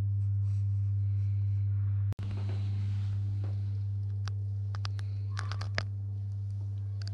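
Steady low electrical hum with a few overtones above it. It drops out briefly about two seconds in, and a few light clicks come about four to six seconds in.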